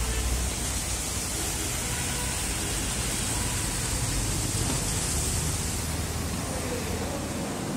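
Steady cabin noise of a moving vehicle: a low road-and-engine rumble under an even hiss.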